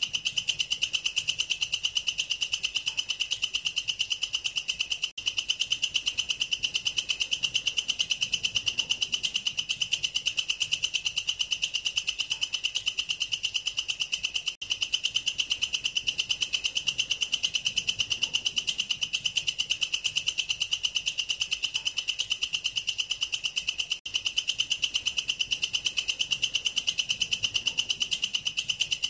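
Katydid (belalang kerek, a long-horned grasshopper of the Tettigoniidae) calling: a continuous shrill, rapidly pulsed trill, broken only by three very brief gaps.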